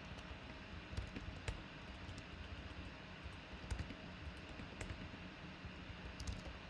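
Faint, irregular keystrokes on a computer keyboard as a short line of text is typed, over a low steady hum.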